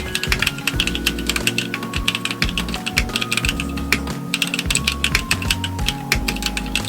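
Fast continuous typing on a Portico mechanical keyboard fitted with DSA-profile Magic Girl keycaps: a dense, uneven run of keystrokes, as in a typing sound test. Soft background music with held notes and a low bass line plays underneath.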